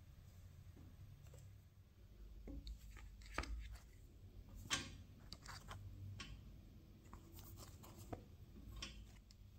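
Faint handling noises: scattered soft taps, clicks and rustles as hands move buns on a metal baking tray, over a low room hum.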